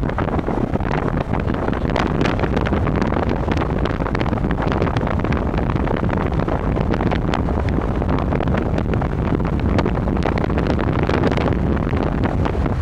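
Wind rushing and buffeting against the microphone from a moving car's window, over a steady rumble of road noise.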